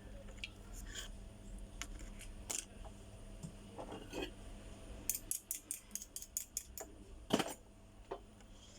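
Light clicks and taps from handling a smartphone and small tools during a charging-port repair. There are scattered single clicks, then a quick run of about ten clicks a little after five seconds in, and a louder knock about seven seconds in.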